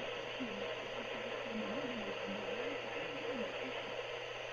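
Weak NOAA Weather Radio broadcast received over a software-defined radio: a voice reading the weekly test message, faint and mostly buried in steady hiss and static.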